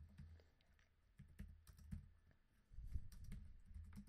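Faint computer keyboard typing: a run of irregular key clicks as a terminal command is typed in and entered.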